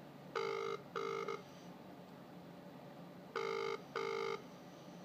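Double-ring ringback tone of an outgoing phone call, heard through a mobile phone's earpiece: two short tones about half a second in and two more about three seconds later, the sign that the called line is ringing and not yet answered.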